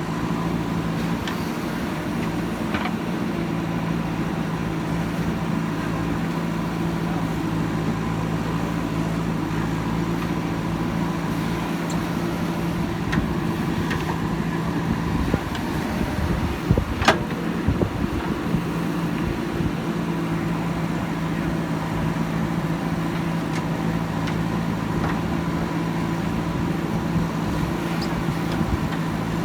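Diesel engine of a JCB backhoe loader running steadily, with a cluster of knocks and clatter about halfway through.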